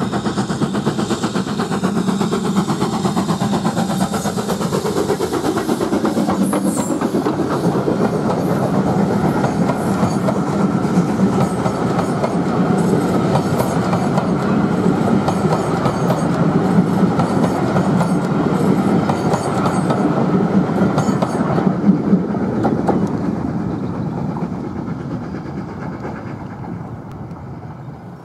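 Steam locomotive hauling a train of coaches past at speed, its exhaust beating rapidly and steadily as it approaches. The coaches' wheels then clatter over the rail joints as the train goes by, and the sound fades away near the end.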